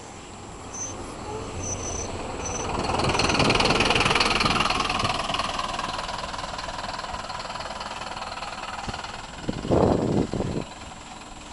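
Shuttle bus engine and tyres passing close by, building to a peak about four seconds in, then fading as the bus drives off down the lane. Near the end comes a short, loud burst of low noise.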